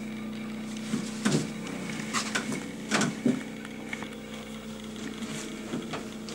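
Aura bass shakers fixed under plywood and pressboard seating, driven by a sine generator, making a steady hum with several overtones as the seat vibrates. Over it come a few wooden knocks and creaks as someone sits down and shifts on the boards, the loudest about one and three seconds in.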